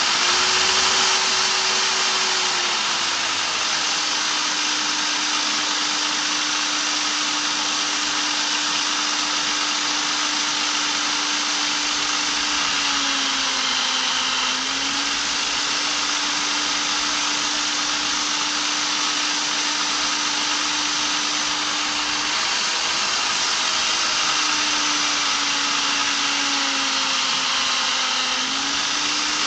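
Black & Decker electric drill, mounted in a bench clamp, running steadily and spinning a polishing pad while a piece of epoxy resin is held against it. The motor's pitch sags briefly about halfway through and again near the end.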